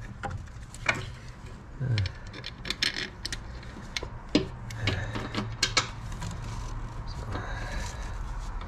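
Scattered metallic clinks and light knocks as a replacement transmission mount is set into place by hand.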